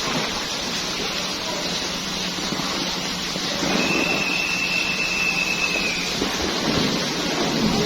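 Steady rain. A little before halfway a single high steady tone sounds for about two seconds, while a low rumble swells under the rain.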